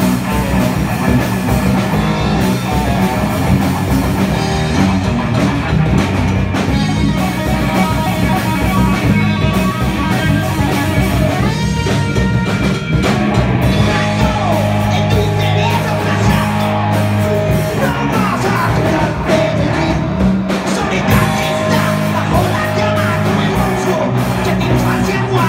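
A live rock band playing loud: distorted electric guitar through a Marshall amp, bass guitar and drum kit.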